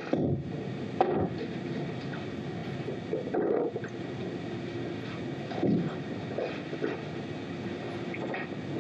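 Dull thumps and knocks, four or so spaced a second or more apart, over a steady rumbling noise.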